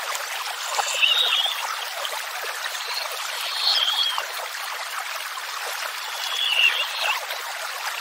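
Running water of a stream or small waterfall, a steady rushing hiss, with three short high bird calls about three seconds apart.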